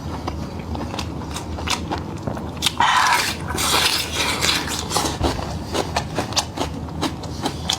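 Close-miked eating: a person biting and chewing meat, many short mouth clicks, with a louder, longer noisy stretch about three seconds in.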